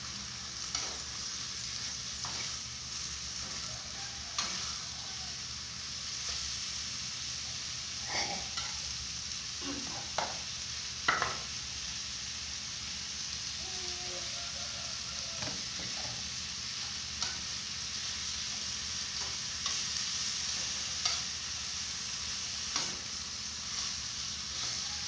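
Chicken in spice paste sizzling in a pan on a gas stove, with a steady hiss. A spatula scrapes and knocks against the pan every second or two as the food is stirred, most sharply about eleven seconds in.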